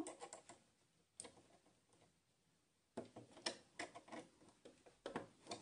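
Faint, scattered clicks and ticks from hands handling a domestic sewing machine at its needle, with a small cluster about three seconds in and a few more near the end; the machine is not running.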